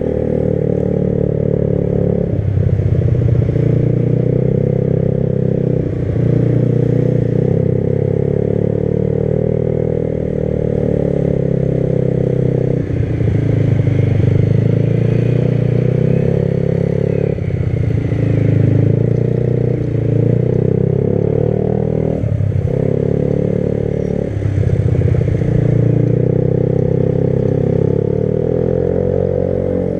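Motorcycle engine running while riding, its note dropping and picking up again several times as the rider changes throttle and gear.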